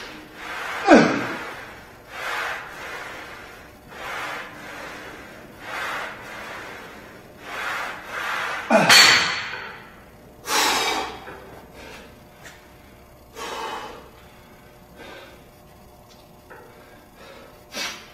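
A man breathing hard through a set of bent-over dumbbell rows, with a forceful exhale about every two seconds. Twice he lets out a loud straining breath that falls in pitch. After about ten seconds the breaths come further apart and quieter as he recovers.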